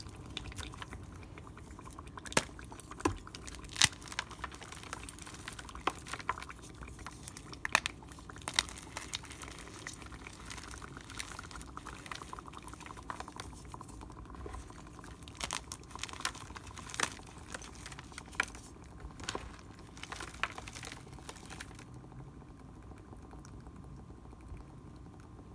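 Powdery gym chalk being crumbled and sprinkled onto a goblet of dry ice, falling in a soft patter with many scattered sharp ticks and crackles as bits land. The sprinkling stops a few seconds before the end.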